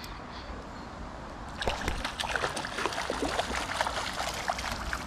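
River water sloshing and trickling close by. Steady flowing water at first, then from about a second and a half in, many small splashes and drips.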